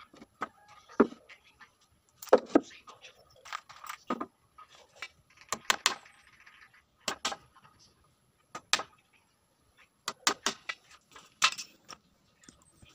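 Hammer tapping small nails into a plywood speaker baffle: irregular sharp knocks, some single and some in quick runs of two or three.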